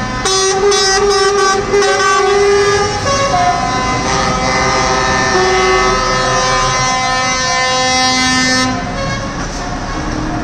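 Several truck air horns blowing long, overlapping blasts at different pitches, with a few shorter toots mixed in. They ease off a little near the end.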